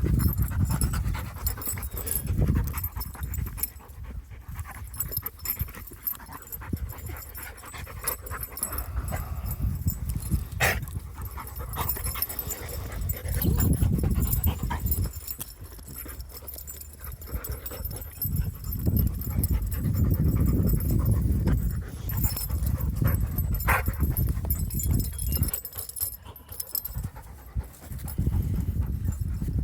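Labrador retriever panting, with irregular low rumbling swells of noise and a couple of sharp clicks.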